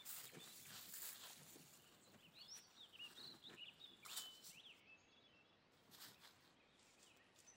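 Near silence: faint outdoor ambience with a run of quick, high bird chirps starting about two seconds in and lasting a couple of seconds.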